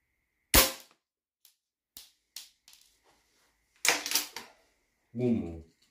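An air rifle fires a single pellet: one sharp crack about half a second in. Afterwards come a few light clicks and a short clatter of metal clacks around four seconds in, as the rifle is handled and cocked for the next shot.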